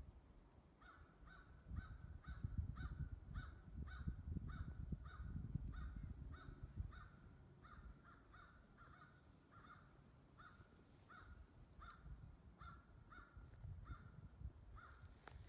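A distant animal giving one short, harsh call note over and over at an even pace, about three calls every two seconds. Low rumbling noise sits under the calls, stronger in the first half.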